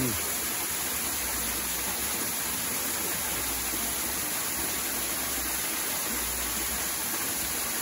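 Small stream water running steadily over rocks, an even, constant splashing flow.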